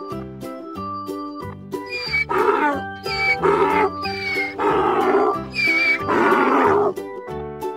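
Donkey braying: a run of loud hee-haw calls from about two seconds in until near the end, over children's background music with a steady beat.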